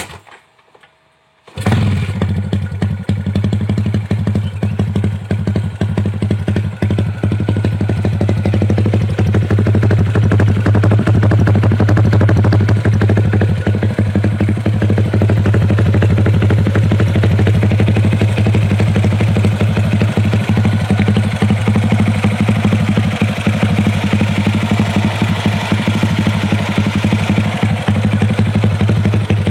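Yamaha LC135 motorcycle's single-cylinder engine running steadily at idle through a LeoVince exhaust can on custom stainless-steel piping. A brief knock comes at the very start, and the engine sound comes in abruptly about a second and a half in.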